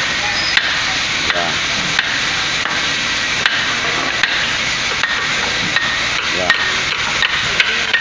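Hacksaw blade sawing metal at a concrete pump's S-valve, a click about every three-quarters of a second over a steady hiss.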